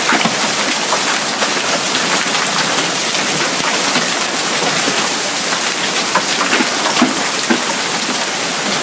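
Heavy downpour of rain and hail striking surfaces: a dense, steady hiss dotted with many sharp individual hits.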